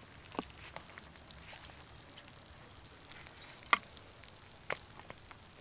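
Quiet background with a few short, sharp clicks or taps, the loudest about three and a half seconds in.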